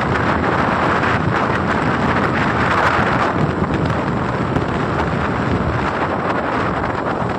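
Steady wind rushing over the microphone from riding on a moving scooter, mixed with the scooter's running and road noise.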